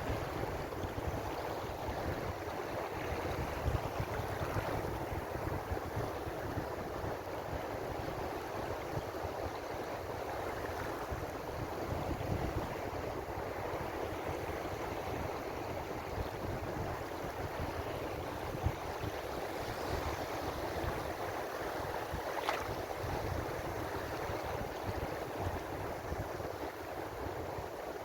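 Ocean surf washing steadily in a continuous hiss, with a low rumble underneath.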